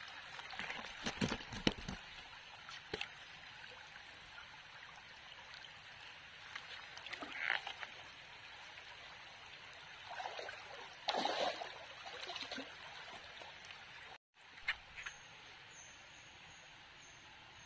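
Shallow stream trickling over stones, with a few louder splashes and knocks from hands and feet moving among the rocks and water. The sound drops out briefly about two-thirds of the way in and comes back quieter.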